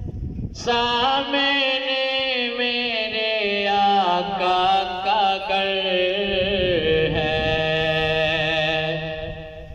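A man singing a naat (an Urdu devotional poem) unaccompanied into a microphone, drawing out one long melismatic phrase with a wavering pitch that steps lower in the second half.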